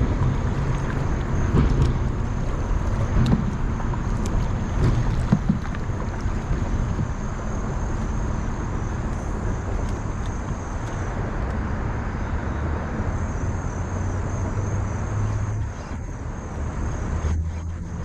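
Wind rumbling on the microphone over the rush of shallow river water, with a few knocks in the first several seconds.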